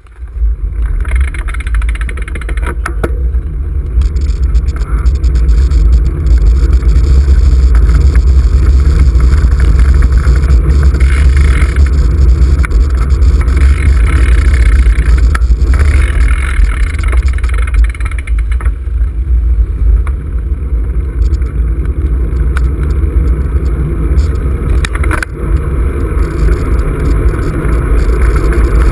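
Steady, loud wind rumble buffeting the microphone of a camera on a moving road bike.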